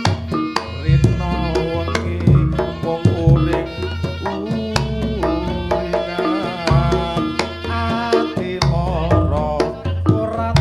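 Reog gamelan music: hand-drum strokes beating steadily under a held, ornamented melody, with deep low notes sounding every second or so.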